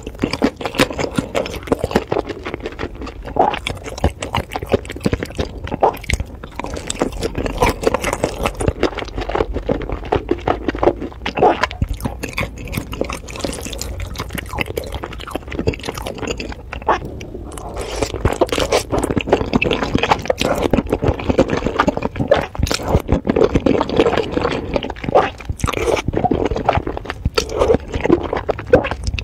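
Close-miked wet chewing, lip-smacking and slurping of saucy noodles and dumplings: a dense run of small sticky clicks and squelches.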